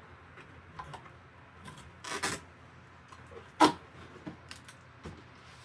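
Cardboard shipping box being opened and its contents handled: scattered rustles and light clicks, a short scraping swish about two seconds in, and one sharp knock a little past halfway, the loudest sound.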